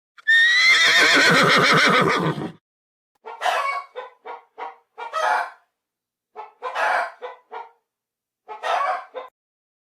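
A horse whinnying once, a long quavering call lasting about two seconds, followed by a hen cackling in three bouts of short clucks, each bout ending in a longer note.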